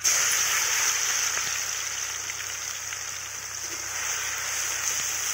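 Chopped garlic frying in hot oil in an iron kadai: a steady sizzle that starts suddenly as the garlic goes in and slowly eases.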